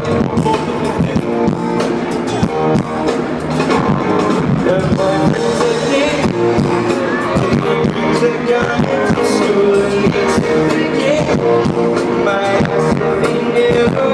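Live pop-rock band music with singing, played loud and continuous.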